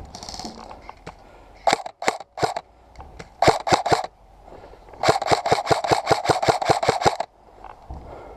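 Airsoft guns firing in semi-automatic: a few scattered shots, then a quick string of about sixteen shots over two seconds, about seven a second, that stops abruptly about seven seconds in.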